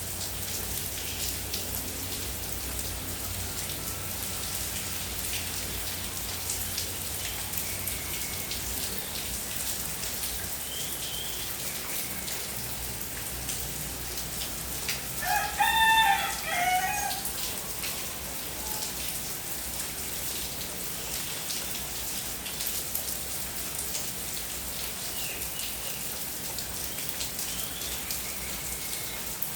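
Steady rain falling, with a rooster crowing once, about two seconds long, about halfway through.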